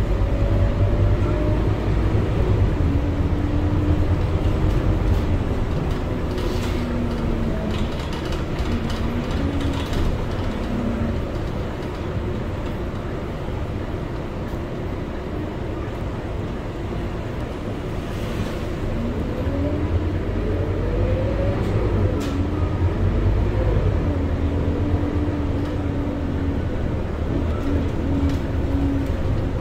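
Scania K230UB city bus heard from inside the saloon: its diesel engine and driveline drone over a steady low rumble. The whine falls in pitch as the bus slows, goes quieter about halfway through, then rises again as it pulls away.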